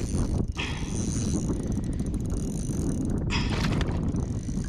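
Baitcasting reel being cranked against a hooked bass, its gears clicking, over wind noise on the microphone.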